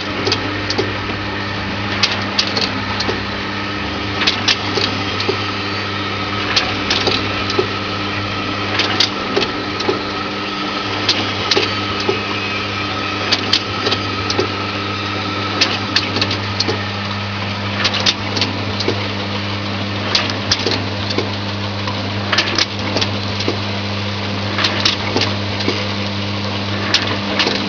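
Vial filling, stoppering and sealing machine running: a steady motor hum with frequent sharp clicks and clatter from the mechanism and glass vials.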